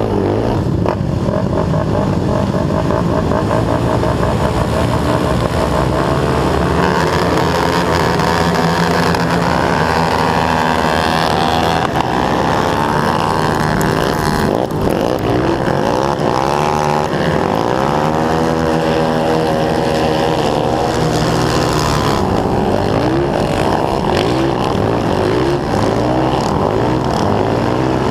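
Honda TRX450R quad's single-cylinder four-stroke engine racing at high revs, its pitch rising and falling over and over as the throttle is worked, with the engines of other racing quads close by.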